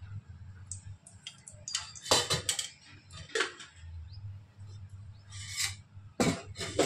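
Steel kitchen utensils clattering: a handful of sharp metal knocks and clinks as pots and containers are handled and set down, over a low steady hum.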